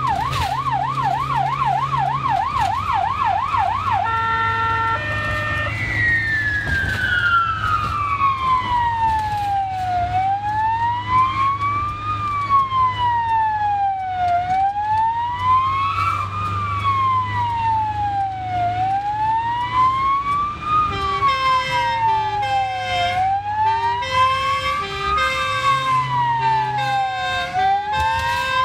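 Hungarian ambulance siren heard from inside the vehicle: a fast yelp for the first few seconds, then, after a brief run of stepped tones, a slow wail rising and falling about every four seconds. About three quarters of the way in, a second siren with a quick pulsing two-pitch pattern joins in, over a steady low engine hum.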